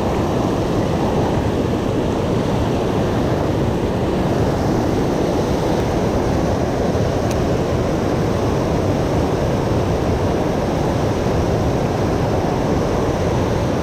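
Steady wind noise buffeting the microphone, a dense low rumble with no distinct tones, with a single faint click about seven seconds in.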